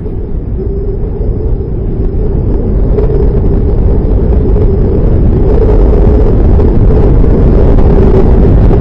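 Cinematic intro sound effect: a deep rumbling rush with a steady droning tone held over it, swelling gradually louder.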